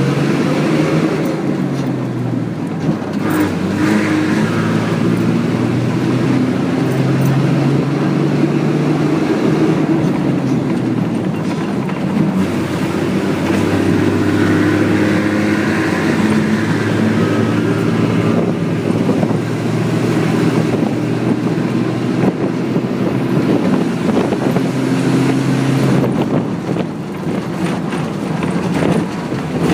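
Bus engine and road noise heard from inside a moving bus: a steady rumble, with the engine note shifting up and down several times as the bus changes speed and a few short rattles and knocks.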